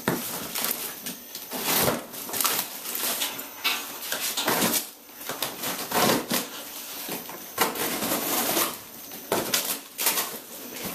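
Cardboard box being cut and torn open with a utility knife: blade slicing through packing tape and plastic stretch wrap, with cardboard flaps ripping and plastic crinkling in short irregular rips.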